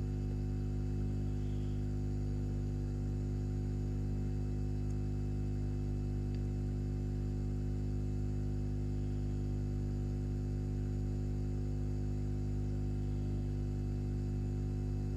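Steady low electrical mains hum with a buzzy stack of its overtones, unchanging throughout.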